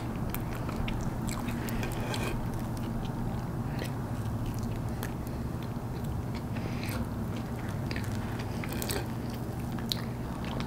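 Close-miked chewing and wet mouth sounds of a person eating cheesecake, with scattered small clicks and smacks. A metal fork cuts into the cake near the end. A steady low hum runs underneath.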